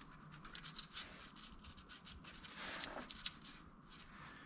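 Faint clicks and light taps of small metal vacuum pump parts being handled and fitted together, with a brief rustle about two and a half seconds in and a sharper click just after.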